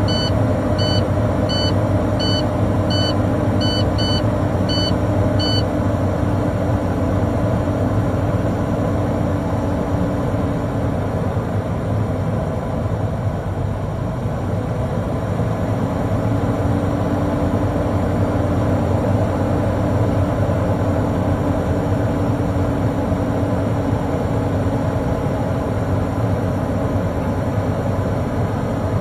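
Truck's diesel engine held at raised revs to build air-brake pressure back up. The low-air-pressure warning buzzer beeps rapidly, about twice a second, for the first five seconds and then stops as the pressure climbs past the warning point.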